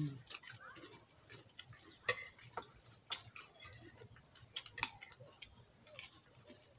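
Spoons clinking and scraping against a plate of rice in scattered, irregular clicks.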